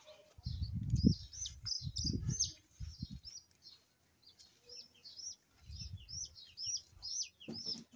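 Small birds chirping over and over in short, high, hooked chirps. Low thuds and rustles, the loudest sounds, come during the first three seconds and again about six seconds in.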